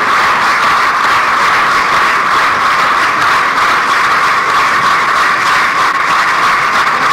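Arena audience applauding steadily, heard as a dense, even noise on a poor-quality old recording.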